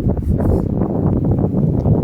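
Wind buffeting the phone's microphone: a loud, rough, fluttering rumble in the low range, with no siren tone.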